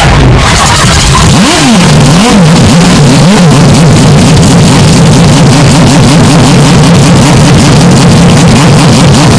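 Historic Formula 1 race car engine revving, its pitch rising and falling in quick blips and then holding at a steady, wavering note. The sound is heavily overdriven and clipped.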